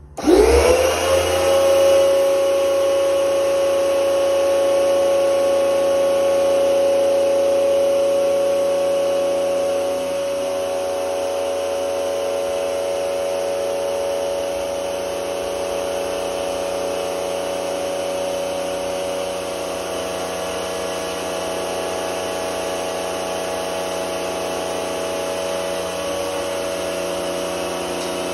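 Pump of a handpan hydroforming rig starting up and running, pressurising water to form the steel shell: its whine rises quickly in pitch just after it starts, then holds steady with several tones, a little quieter after about ten seconds.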